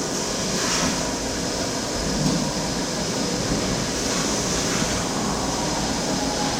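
A machine running steadily: a continuous low rumble with a strong, even hiss over it and no clear rhythm or change.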